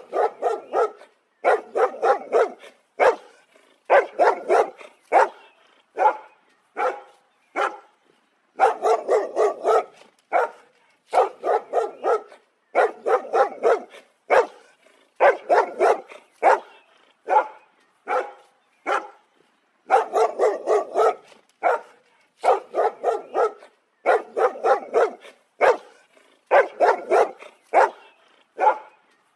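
A dog barking in quick runs of several barks, each run separated by short silences.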